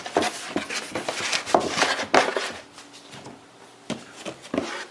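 Handling noise from a graphics card's box and packaging being opened up: rustling, scraping and sharp knocks, dense for the first two seconds or so, then quieter, with a few knocks near the end.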